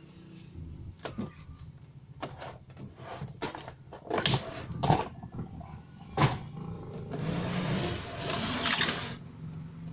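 Irregular knocks and a scraping rub as a heavy 29-inch CRT television is handled and shifted on a wooden workbench, over a steady low hum.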